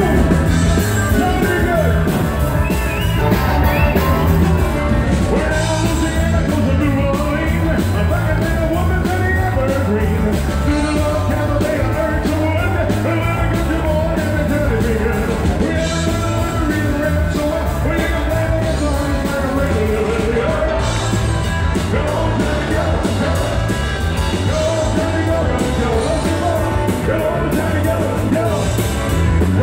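Live rock music: a male lead singer over electric guitar, bass and drums, with a steady beat.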